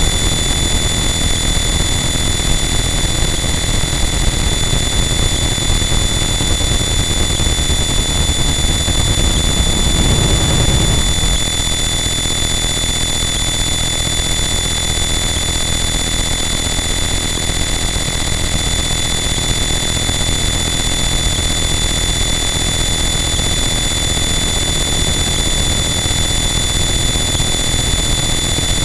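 Harsh noise wall: a dense, unchanging wall of distorted electronic noise, with a few steady high tones running through it. About ten seconds in there is a brief thicker surge in the low end, after which the texture shifts slightly.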